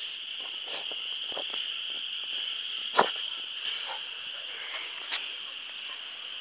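Steady high-pitched insect chirring, with scattered rustles and knocks from fingers handling the phone; the loudest knock comes about three seconds in.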